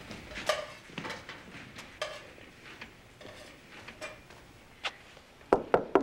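Footsteps crossing a kitchen floor, then three quick, sharp knocks of knuckles on a wooden door near the end.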